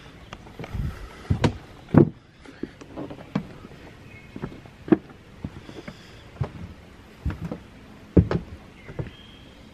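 Footsteps, with knocks and rubbing on the hand-held phone as it is carried while walking: irregular thumps and clicks, loudest about two seconds in and again about eight seconds in.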